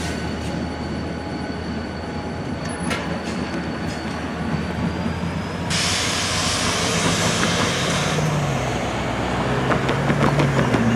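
EMD SD40-2 diesel locomotive running light, its low engine rumble going on as it moves away. About six seconds in a louder rushing hiss sets in, with a car engine near the end.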